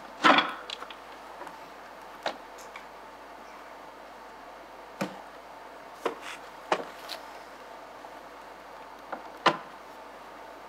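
Wooden picture frames knocking and clattering against an old suitcase as they are handled, about half a dozen short knocks over a low hiss, the loudest right at the start and another near the end.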